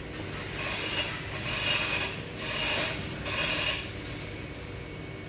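Sheets of paper rustling in four short swells as a stack of stock-count sheets is handled and turned close to the microphone, over a steady low hum.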